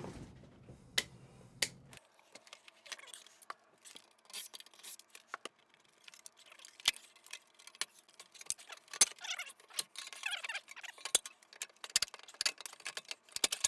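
Irregular light metallic clinks, clicks and knocks as an old bathroom exhaust fan's sheet-metal housing is worked loose with a hand tool. They come thicker in the second half.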